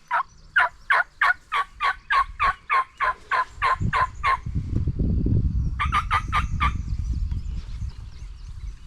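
Turkey yelping: a long, even run of short, sharp notes at about three a second, then a quicker run of about five notes near the middle. A low rumble underlies the second half.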